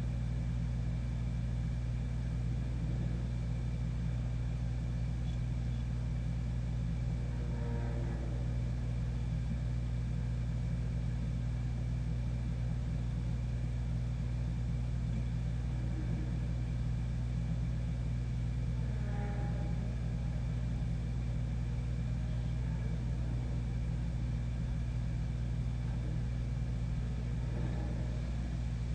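A steady low rumble of unknown origin, with faint wavering groan-like tones coming through three times, about ten seconds apart.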